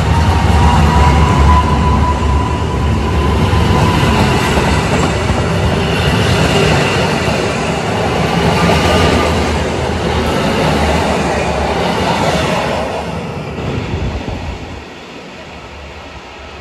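Koleje Mazowieckie electric multiple unit passing close by along the platform: wheels rumbling and clicking on the rails, with a traction-motor whine rising slowly in pitch as it gathers speed. The sound drops away near the end.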